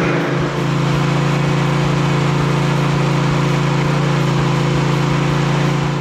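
Engine of a Husqvarna stand-on lawn mower running steadily as the mower is driven along.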